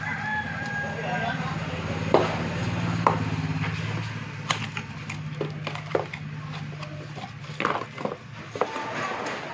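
Scattered clicks and taps of a boxed mobile phone and its packaging being handled, over a steady low hum that stops near the end.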